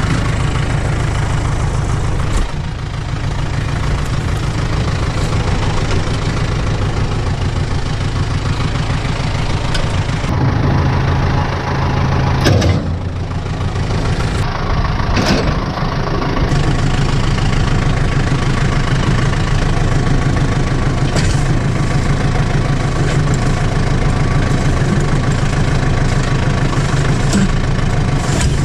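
Utility tractor engine idling steadily, with a few sharp metal knocks around the middle as a disc harrow is hitched to the three-point hitch.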